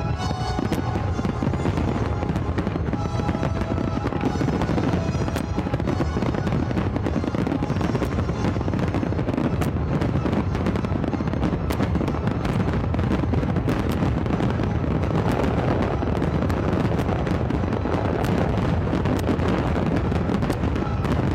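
Fireworks finale barrage: a dense, continuous run of bursts and crackle with no break. Music is heard with it for the first few seconds.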